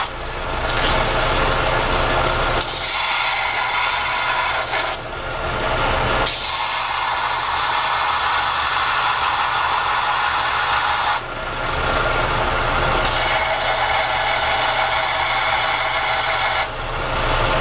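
Benchtop belt sander running steadily, with a stainless steel spoon pressed against the sanding belt. The metal grinding comes and goes in spells of a few seconds as a hiss over the motor's hum.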